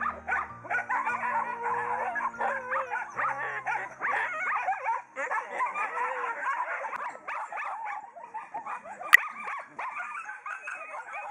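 Many caged dogs whining, yelping and howling all at once in a dense overlapping chorus. Low music notes fade out in the first three seconds, and a single sharp knock sounds about nine seconds in.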